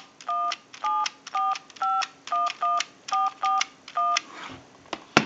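Touch-tone keypad of a Western Electric Trimline telephone dialing a number: about ten short two-tone beeps, roughly two a second, one per key press, followed near the end by a sharp click on the line.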